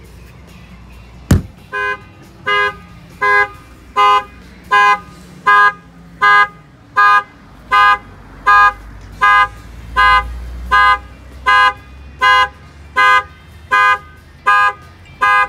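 A single sharp knock on the truck's window glass about a second in trips the shock sensor, and the 2017 Ford F-350's factory alarm sounds the horn in a steady run of identical honks, about one every three-quarters of a second.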